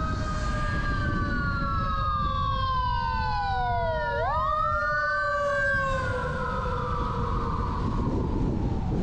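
An emergency vehicle's siren wailing. Its pitch slides slowly down, jumps back up about four seconds in, then falls away and fades near the end, over the steady low rumble of road noise.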